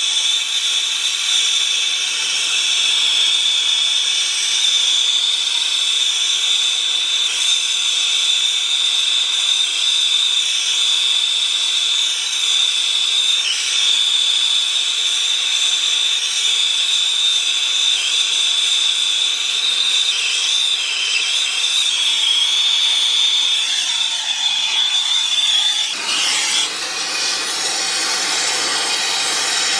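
Brazing torch flame hissing steadily as it heats a copper refrigerant line joint, with a high whistle in the hiss that wavers and then cuts out about four seconds before the end, leaving the hiss.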